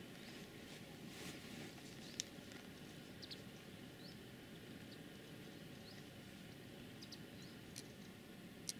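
Quiet outdoor background with a low steady hiss, scattered faint short high chirps of small birds, and a few sharp clicks, the loudest about two seconds in and another near the end.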